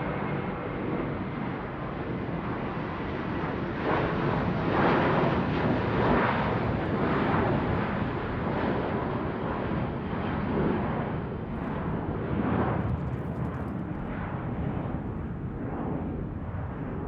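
Airplane flying overhead: a broad roar that swells to its loudest about five to seven seconds in, then slowly eases, wavering as it goes.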